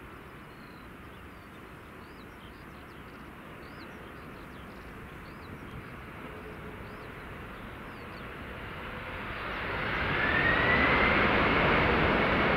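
Boeing 767-300ER landing: a low, distant jet rumble with faint high chirps over it. About ten seconds in, the noise swells sharply and a rising engine whine comes in as its General Electric CF6 turbofans spool up on the rollout, typical of reverse thrust after touchdown.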